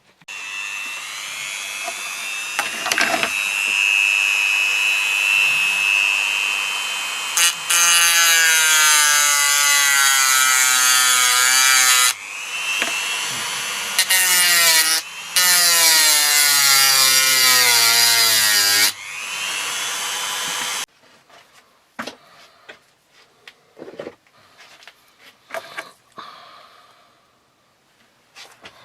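Power grinder running in bursts, grinding off a pop rivet that set without its mandrel pulling out. The motor's whine wavers and sags in pitch as it bites. It cuts out briefly three times and stops about two-thirds of the way through, followed by a few light clicks.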